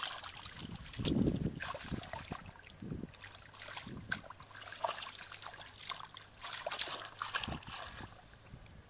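Shallow muddy water splashing and trickling in small irregular bursts as hands grope and scoop through the mud for fish, with a louder splash about a second in.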